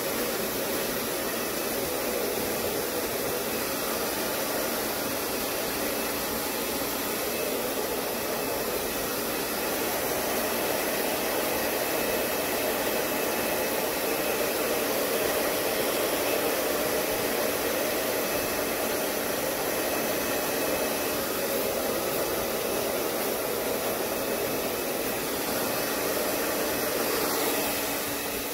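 Handheld hair dryer blowing steadily, a continuous rush of air with a faint steady whine in it; it drops a little in level near the end.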